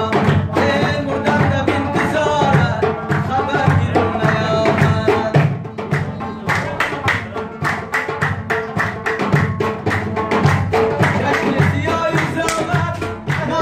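Live Afghan Uzbek folk music: a dambura, the long-necked two-string lute, strummed fast, with singing over it and hand-clapping keeping a steady quick beat.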